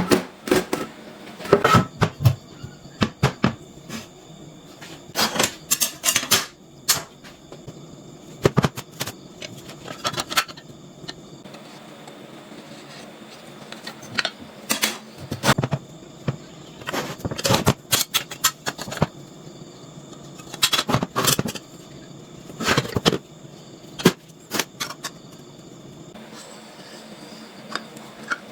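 Irregular clattering knocks and clanks, coming in clusters of several sharp hits with short gaps between.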